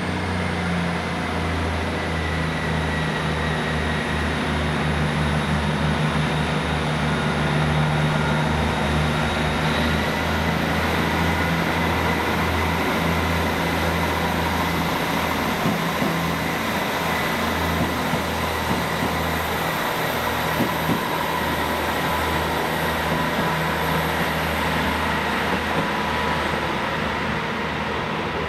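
Diesel train running with a steady low engine drone over rail and wheel noise, and a thin high whine. The engine drone fades about twenty seconds in while the rumble and whine go on.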